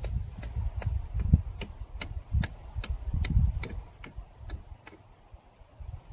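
Insects trilling steadily at a high pitch, with a sharp tick repeating about two and a half times a second, over gusty wind rumble on the microphone.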